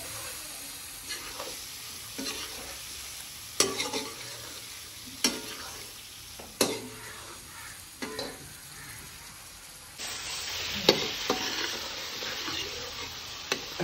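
Chicken frying in hot ghee and masala in a metal pot, sizzling steadily while a metal ladle stirs and scrapes through it, with a few sharp clanks of the ladle against the pot. The sizzling grows louder about ten seconds in.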